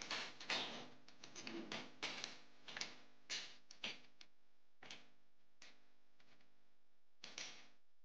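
Plastic wall switch plates and their wires being handled and knocked against a wooden bench: a run of light clicks and taps, close together for the first few seconds, then only a few scattered ones.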